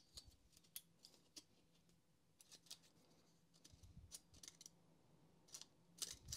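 Faint, scattered small clicks and ticks of plastic and metal parts being handled as a coil spring is fitted into the black plastic rear switch cover of a Makita cordless heat gun.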